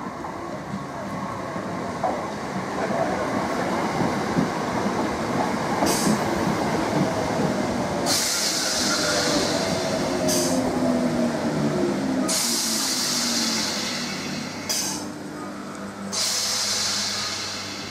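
Electric multiple unit passenger train running along the platform, rumbling on the rails. A falling whine from about a third of the way in shows it slowing. Several short bursts of high hiss come over it in the second half.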